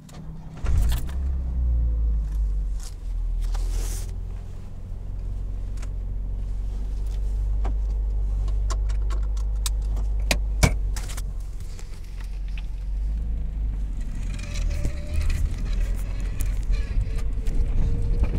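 Toyota AE86's 4A-GE 1.6-litre twin-cam four-cylinder running with the throttle being feathered, with irregular sharp ticks over the engine note, which the owner suspects is an exhaust manifold or extractor leak. A faint wavering whine comes in near the end.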